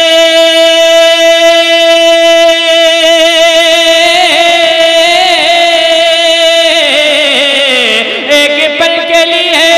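A man singing a naat solo into a microphone, holding one long note for about seven seconds, then sliding down in pitch and rising back to the note.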